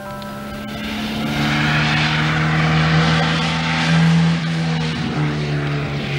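A sports car's engine running at speed as the car drives by, with road and wind noise. It is loudest about four seconds in, and the engine note drops in pitch about a second later as the car goes past.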